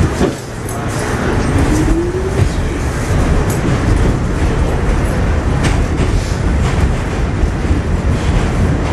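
New York City Subway R46 car pulling out of a station, heard on board: a heavy, steady rumble of the car on the rails, with the traction motors' whine rising in pitch about a second in as the train accelerates, and a few light clicks from the track.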